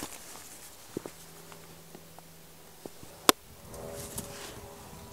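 Small Gränsfors Bruks hatchet chopping a scrap of wood to length: three sharp knocks of the blade on the wood, the last, a little past three seconds in, much the loudest.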